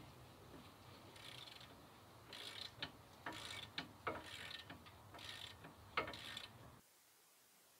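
Hand socket ratchet clicking in short bursts of strokes, about one a second, as bolts are turned at a pickup truck's front wheel. The sound cuts off abruptly near the end.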